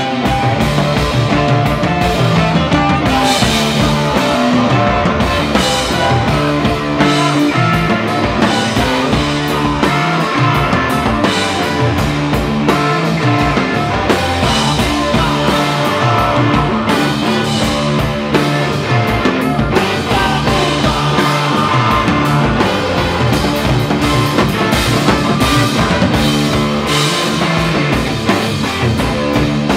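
Live rock band playing: a drum kit and an electric bass keep a steady groove, with flute and trumpet.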